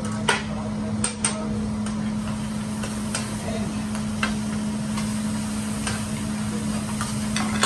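Metal hibachi spatula clacking and scraping on a hot steel griddle as food is turned, with several sharp, irregularly spaced clacks over a steady hiss of frying and a low steady hum.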